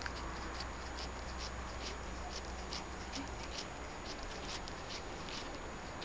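Cat chewing cucumber: a string of short, crisp crunching clicks, about two to three a second, uneven in spacing.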